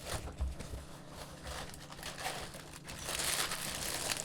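Toy packaging crinkling and rustling as it is opened by hand, louder from about three seconds in.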